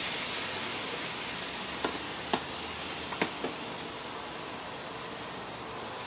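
Marinated beef steaks sizzling on a hot gas barbecue grate, a steady hiss. A few short clicks of metal tongs against the meat and grate come about two to three and a half seconds in.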